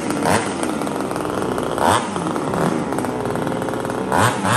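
Small gas engine running fast and steady, with brief louder surges about two seconds in and near the end.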